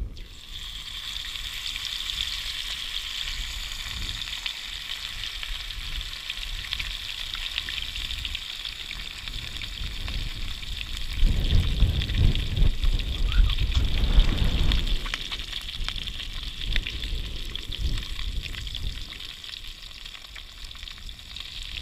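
Whole grunt deep-frying in hot canola oil in a frying pan, a steady loud sizzle from oil hot enough to fry hard. About halfway through, wind rumbles on the microphone for a few seconds.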